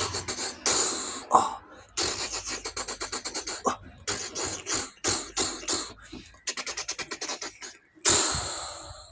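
A person making sound-effect imitations with the mouth: fast runs of hissing, clicking pulses, about eight a second, in bursts with short breaks, ending in a long hiss that fades.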